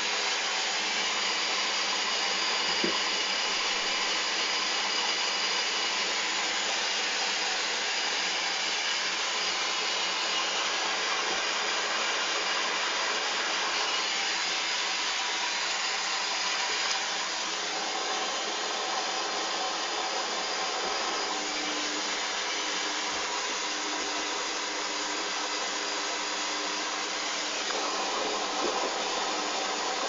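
Hoover Dynamic front-loading washing machine drum turning a sudsy load of laundry, its motor giving a steady whirr with a faint whine.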